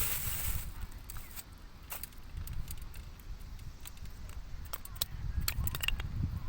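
Light, scattered clicks and clacks, as of split wood pieces being handled and knocked together, a few early on and a quick cluster near the end, over a low rumble.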